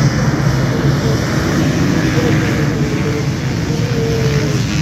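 A pack of off-road racing motorcycles revving together and pulling away at the start of a race, a dense, loud engine din that rises sharply just before and holds steady.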